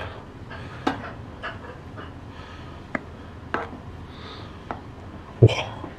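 Steel ladle stirring a pot of thick flour-dumpling soup, with a few light clinks of the ladle against the pot spaced about a second apart and soft breaths in between.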